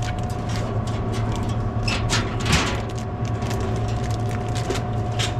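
Steady mechanical hum with a couple of short knocks or rattles about two seconds in.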